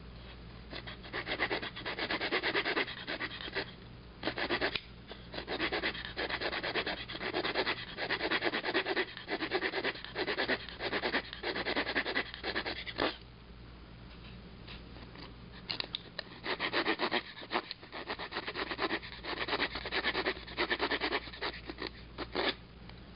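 Swiss Army knife saw blade cutting a notch into a hard live oak fireboard in quick back-and-forth strokes. The sawing pauses about halfway through for a couple of seconds, then resumes and stops just before the end.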